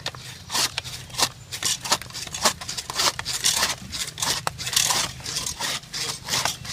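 Hand saw blade of a Zippo 4-in-1 Woodsman hatchet sawing back and forth through wet green wood, in quick, uneven rasping strokes at about three a second.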